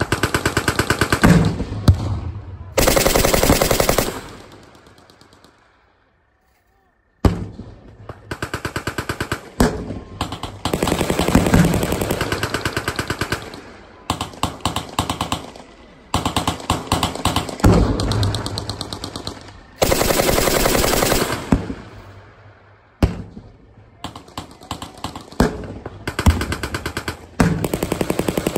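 Machine guns firing long bursts of rapid shots, each lasting one to three seconds with short gaps between them. The sound drops out completely for about a second and a half near the start.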